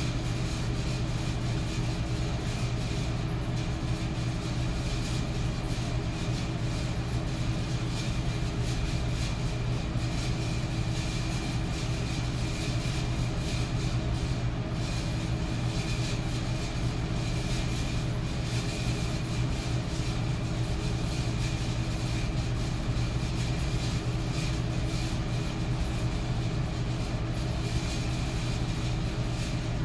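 Metal electric fan running steadily: an even rush of moving air over a low, constant motor hum, with a faint higher whine.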